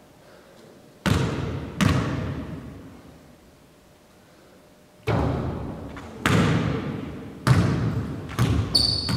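Basketball bouncing on a hardwood gym floor, each bounce echoing through the hall: two bounces about a second in, then after a pause a run of bounces coming closer together as the loose ball settles. A brief high squeak near the end.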